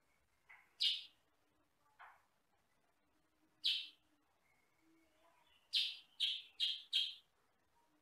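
Kutilang sutra, a yellow-and-black bulbul, giving short, sharp single calls, then a quick run of four calls near the end.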